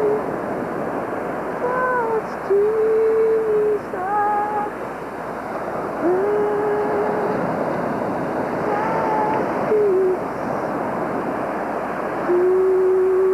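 A person humming a slow hymn tune in long held notes, over the steady rush of ocean surf.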